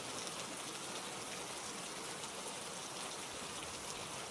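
Steady rain falling, an even hiss of drops with no distinct strikes.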